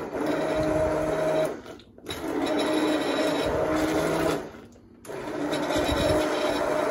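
Handheld immersion blender running in a saucepan of hot cream sauce, blending in grated Parmesan and cream cheese. It runs as three bursts with two short pauses, the motor hum steady within each burst.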